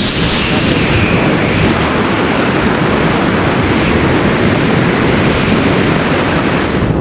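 Loud, steady wind noise buffeting the microphone from the rushing air of a skydive.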